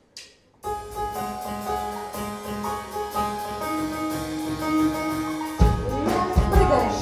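A live band's song begins: held keyboard chords and notes, joined about five and a half seconds in by drums and bass.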